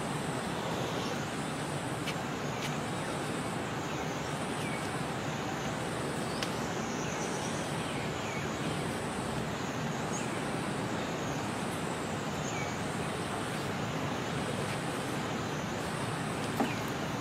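Steady outdoor ambience: a constant rushing noise, with a high-pitched drone that swells and fades about once a second and a few faint short chirps.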